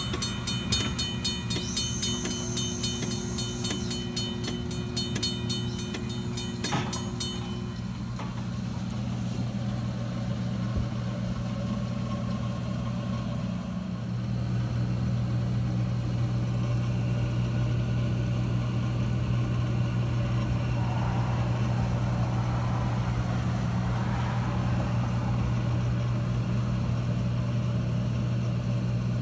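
A railroad crossing's mechanical bell ringing with fast, even strikes, then stopping about eight seconds in. A steady low hum runs underneath and carries on alone afterwards.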